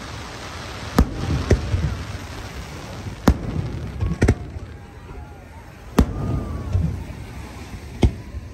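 Aerial firework shells bursting overhead: about seven sharp bangs at uneven intervals, each trailing into a low rumble.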